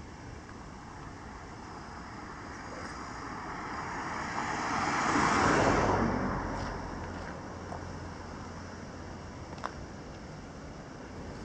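A car passing by on the road: its tyre and engine noise swells to a peak about five seconds in, then fades away.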